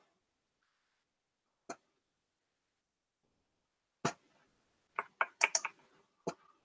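Computer keyboard and mouse clicks: a single click, then after a silent stretch a quick cluster of clicks about four seconds in.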